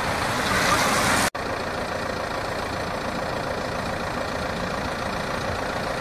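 Steady road and outdoor noise with no engine or voice standing out. It swells briefly about a second in as a group of racing cyclists passes close by, then cuts out for an instant at an edit.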